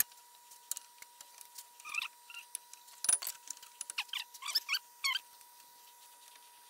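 Faint light metal clinks and short squeaks of brake pads being handled and slid into the caliper bracket's clips, over a faint steady hum.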